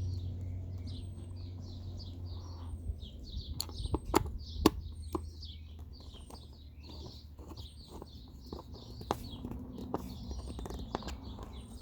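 Sharp little clicks and taps of screws and a screwdriver against a plastic computer keyboard case as it is screwed back together, the loudest a few seconds in. Birds chirp steadily behind.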